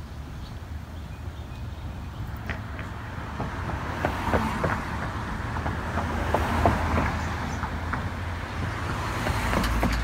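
Road traffic: vehicles passing, their noise swelling midway and again near the end, over a steady low rumble, with scattered light clicks.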